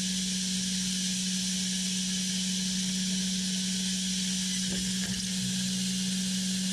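Large wood sawing machine running: a steady low hum with an even hiss over it.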